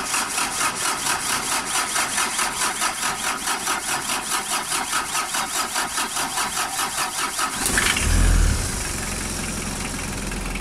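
Diesel engine cranking on its starter for about eight seconds with a steady beat of four or five strokes a second, then catching near the end with a loud burst and settling to idle. A long, hard start, with faulty glow plugs suspected.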